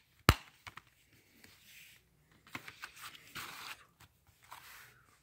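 Plastic Blu-ray case and its cardboard slipcover being handled: one sharp click just after the start, then a few light clicks and short spells of soft scraping and rustling.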